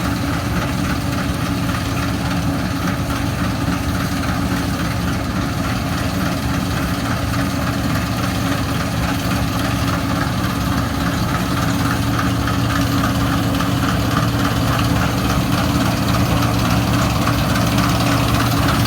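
Massey Ferguson 27 combine harvester running steadily as it works, a low engine hum under a constant mechanical noise, growing a little louder near the end.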